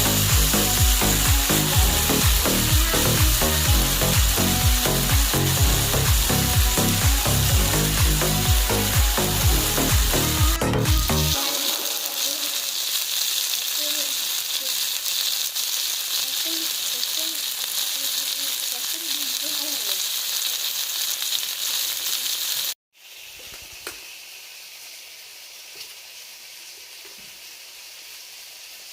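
Food sizzling as it cooks, a steady crackling hiss. Background music with a steady beat plays over it for the first ten seconds or so; after a brief cut-out near the end, the sizzling goes on more quietly.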